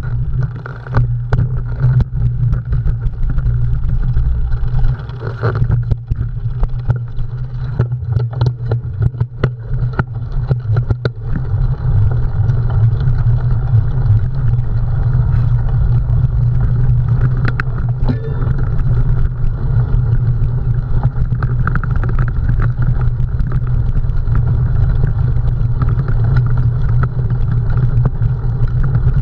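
A cyclocross bike ridden at race speed, with steady heavy wind rumble on the microphone. Sharp rattles and clicks from the bike going over rough ground come thick in the first dozen seconds and more sparsely after.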